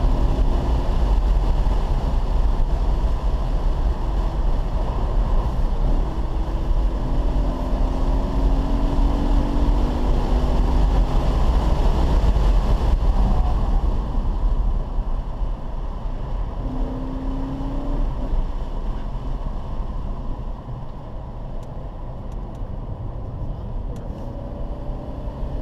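Car engine pulling hard on a race track, heard from inside the cabin over road and wind noise. Its note rises in pitch several times, and it turns quieter from about twenty seconds in, off the throttle as the car nears a corner.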